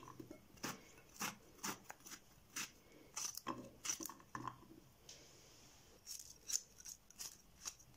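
Paring knife cutting small pieces off a zucchini held in the hand, a string of faint, crisp snicks at irregular intervals, with the diced pieces dropping into a glass bowl.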